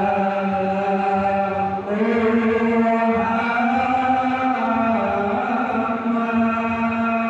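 A group of men chanting together in unison, holding long drawn-out notes that shift pitch every two or three seconds.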